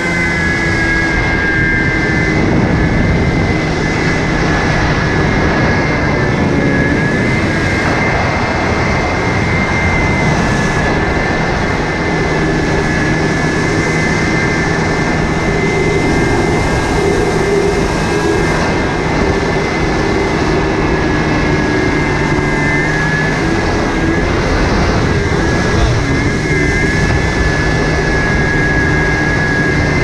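1987 Kawasaki X2 stand-up personal watercraft's two-stroke twin engine running steadily under way at a constant throttle, over a constant rush of wind and water spray off the hull.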